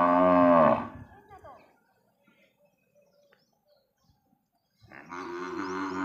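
Zebu cattle mooing: one loud moo lasting about a second at the start, then a second, quieter and longer moo beginning about five seconds in.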